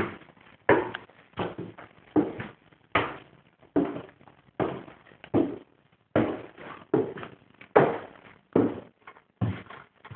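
Footsteps at an even walking pace, a little more than one step a second, each a sharp thud with a short decay.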